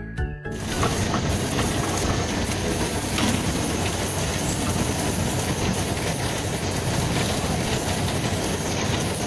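Fishing boat's engine and deck machinery running as a net is hauled aboard: a loud steady rumble with faint irregular clatter, starting about half a second in.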